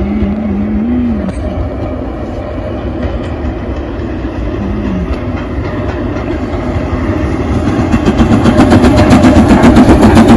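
Steam locomotive hauling a train of coaches, its exhaust chuffing in a rapid, even beat that grows louder from about eight seconds in as the train approaches.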